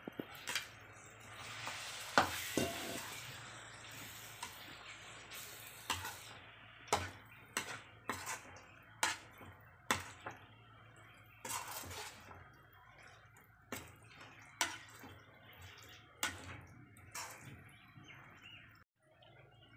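Perforated metal spatula scraping and clinking against a metal kadai as cooked mutton is stirred into a thick masala, with sharp, irregular clinks about once a second.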